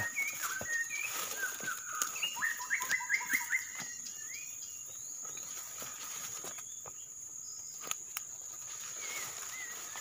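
Murai batu (white-rumped shama) singing: clear whistled notes and a quick run of rising notes in the first few seconds, then a short phrase near the end. A steady high insect drone runs underneath.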